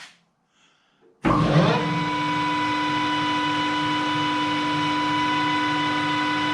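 Gosan metal lathe switched on about a second in: the spindle motor and headstock come up to speed quickly and then run steadily at 840 rpm, a constant hum with a steady whine.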